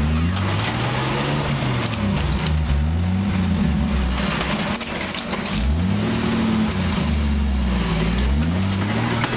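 A 1976 Jeep CJ5's AMC 258 inline-six engine revving up and down under load on a steep off-road climb, its pitch rising and falling several times.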